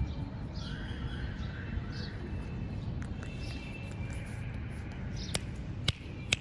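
A parrot giving short, scattered calls, about five in all, with three sharp clicks near the end over steady low background noise.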